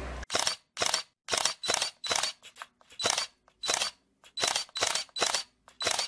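A run of camera shutter clicks, about fifteen of them at uneven spacing of roughly two or three a second, some coming in quick pairs.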